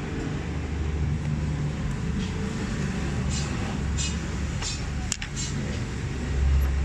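Screwdriver scraping and clicking against the metal contact-breaker plate and points inside a car distributor: a handful of short scrapes between about three and five and a half seconds in. A steady low engine rumble runs underneath.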